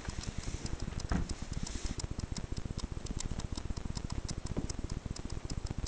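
Steady, rapid, even ticking, with a single soft knock about a second in as the PVC-framed elevated dog bed is set down on the floor.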